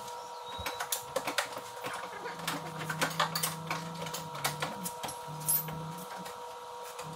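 Scattered clicks and knocks of hand tools and metal parts as the stock exhaust pipe is taken off a snowmobile, over a steady faint hum.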